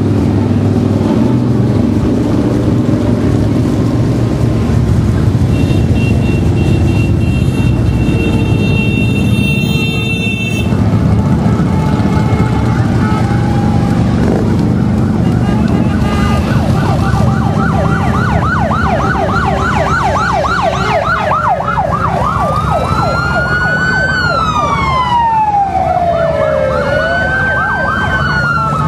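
A procession of motorcycles rumbling past, with a steady high-pitched tone for a few seconds near the start. From about halfway a siren joins in: first a fast yelp, then slower rising and falling wails.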